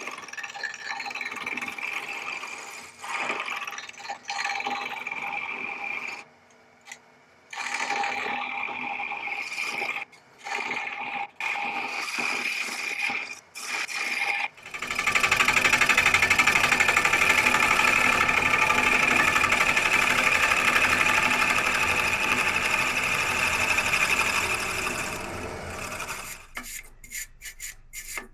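Wood lathe motor running with a steady whine as a tool works the spinning driftwood, in short clips cut together during the first half. About halfway in the cutting becomes a loud continuous scraping, then breaks into rapid intermittent ticking near the end.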